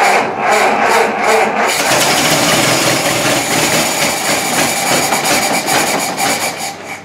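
Ford Model T's four-cylinder flathead engine running just after starting from cold on the battery, with a new exhaust manifold fitted but not yet tightened down.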